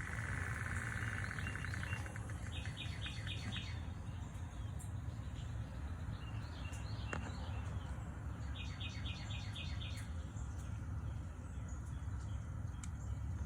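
Songbirds chirping in quick runs of about five repeated notes, the first run about two and a half seconds in and another about nine seconds in, with a buzzy trill in the first two seconds. Underneath is a steady low hum, plausibly the car's electric coolant pump running the bleed cycle.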